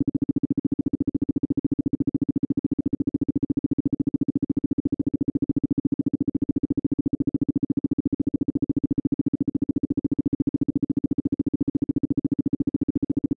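Isochronic tone for brainwave entrainment: a single low synthesized tone switched on and off in rapid, evenly spaced pulses, many times a second, holding steady.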